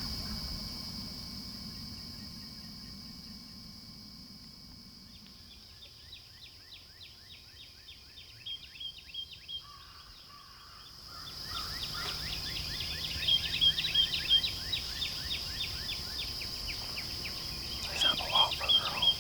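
Outdoor natural sounds: insects keep up a steady high-pitched drone while birds sing rapid, repeated chirping phrases. The bird song starts about five seconds in and grows louder after the middle. A low rumble fades out over the first few seconds.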